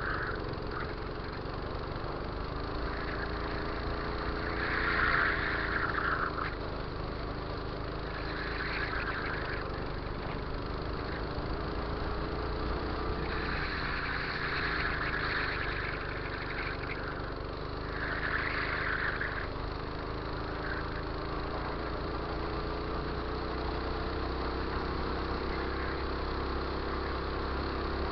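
Go-kart engine running under the onboard camera, its pitch rising and falling repeatedly as the kart accelerates and slows through the corners. Several brief, louder bursts of higher-pitched noise come over it, the loudest about five seconds in.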